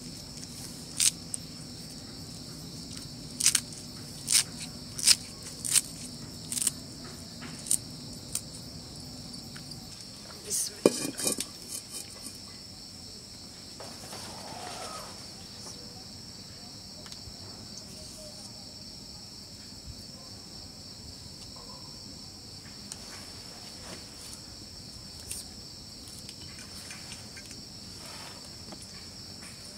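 Crickets chirp steadily throughout. Over the first dozen seconds, sharp clicks and taps come at uneven intervals as flat bean pods are trimmed with a small blade over a steel bowl, with a louder metallic clatter about eleven seconds in.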